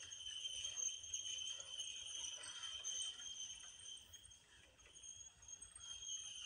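Toy Christmas train rolling past on its track, with a faint, steady, high jingling ring.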